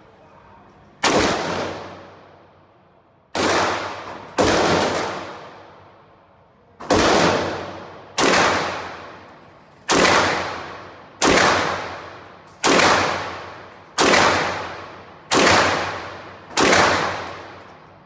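B&T GHM9 semi-automatic 9x19mm carbine fired about eleven times in slow single shots, roughly one every second or so, each crack ringing out in the echo of an indoor range.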